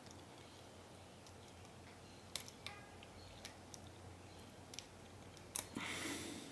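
Lock pick and tension tool clicking lightly in a Medeco pin-tumbler sidebar core as it is picked. There are several faint, irregular ticks, and a brief louder rush of noise near the end.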